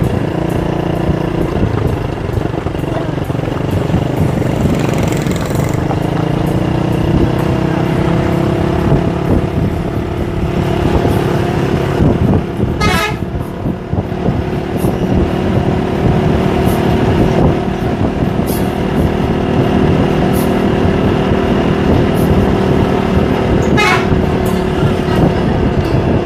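Multi-tone musical bus horn (Indonesian 'klakson telolet') sounding long held notes that shift pitch now and then, over the steady rumble of a running engine.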